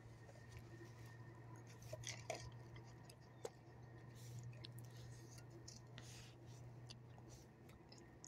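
Near silence: a faint steady low hum with scattered soft clicks and ticks, the sharpest about two and a half and three and a half seconds in.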